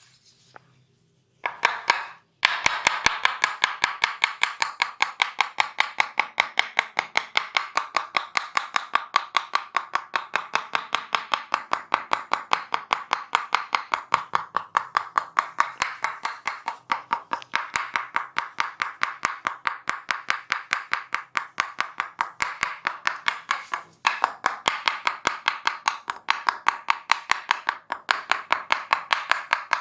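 Hand-chopping (hacking) massage: the masseur's hands strike the body in quick, even chopping slaps, several a second. They start about two seconds in and break off briefly twice.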